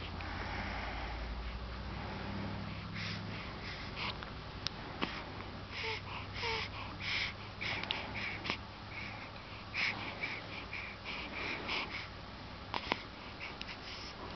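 Baby breathing and snuffling through the nose close to the microphone: short, irregular noisy breaths with a few small clicks. A low hum fades out in the first few seconds.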